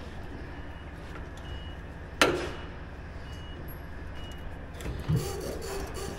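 A single sharp metal clank about two seconds in, against a low steady hum, with a faint high beep repeating every second or so. The truck's engine is not running.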